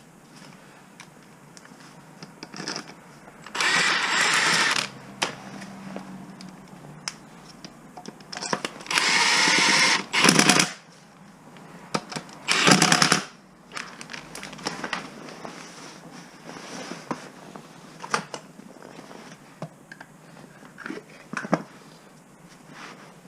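Power tool, likely the cordless impact wrench, run in three short bursts about 4, 9 and 12 seconds in. Small clicks and knocks of hand tools and parts sound between the bursts.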